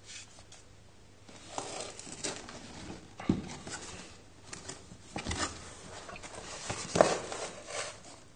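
Cardboard box being handled and turned over in the hands: irregular scraping and rubbing with a few knocks, the loudest about seven seconds in.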